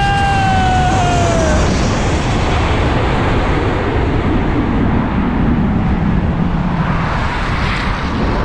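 Airliner passing low overhead: a loud, steady engine roar. A whining tone falls in pitch over the first second and a half as the aircraft goes by.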